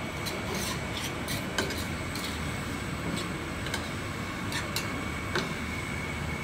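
Vegetables cooking in a vinegar sauce in a pan over a gas burner: a steady hiss and low rumble, with light irregular clicks and scrapes of a metal fork against the pan.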